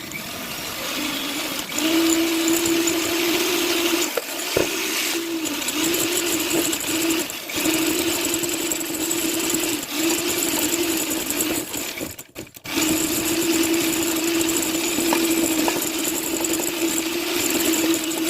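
Electric mixer running steadily at high speed, whipping egg whites with a pinch of salt into stiff snow-like peaks. It stops briefly about twelve seconds in, then runs on.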